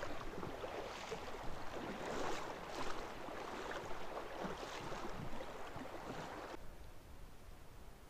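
Creek water swishing and splashing around chest waders as a person wades across a shallow creek, in uneven surges with each stride; it drops away about six and a half seconds in.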